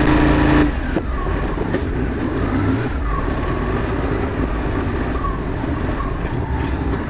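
Ducati motorcycle engine running at low speed under a low rumble of wind and road noise. A steady engine note drops away within the first second, leaving the low rumble and a faint note that rises and falls.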